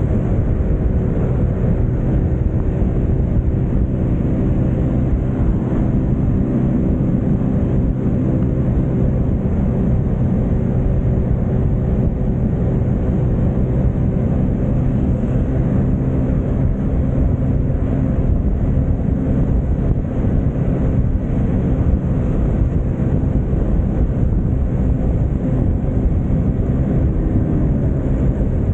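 A stock Yamaha Mio scooter's single-cylinder four-stroke engine running at a steady cruising speed, mixed with wind and road noise rushing past the microphone.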